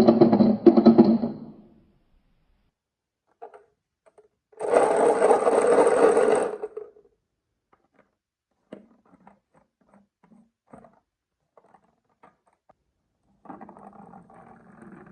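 Marbles rolling and rattling down a wooden marble run, in two loud runs of a second or two each. Scattered small clicks follow, then a softer rattle near the end.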